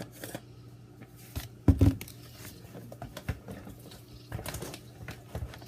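Hands working seasoning into raw pork chops: soft wet squishing with scattered small clicks, and one louder knock about two seconds in.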